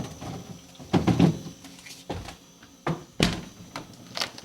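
A freezer door being opened and things inside being handled: a series of about six sharp knocks and thumps, the loudest about a second in and a little past three seconds.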